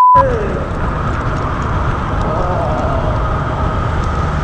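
Motorcycle riding along a road: steady engine rumble and wind noise. An electronic beep tone cuts off right at the start.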